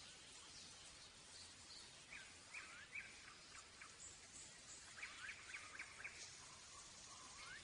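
Near silence with a faint steady hiss, and faint quick bird chirps in two short runs, about two seconds in and again about five seconds in.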